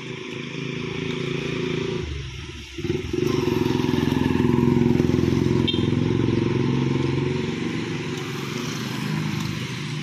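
ATR 72 twin turboprop engines and propellers running on the runway as the aircraft turns: a steady, pitched drone. It dips briefly, grows louder about three seconds in, then slowly eases off.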